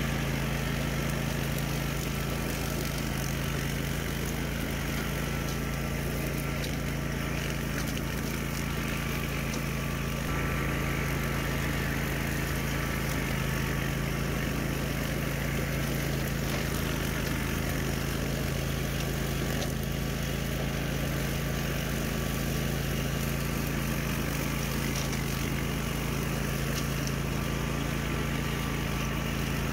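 Walk-behind rough-cut brush mower's gas engine running steadily at a constant speed while the mower cuts through tall weeds and brush.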